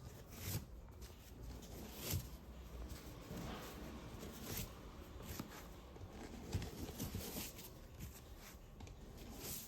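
Hands handling an unboxing: packaging and objects rustling, with several light clicks and knocks spread through.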